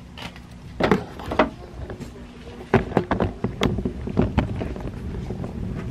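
Handling noise: the camera's microphone rubbing and bumping against clothing and hair, a run of irregular scrapes and knocks over a low rumble that grows louder after about three seconds.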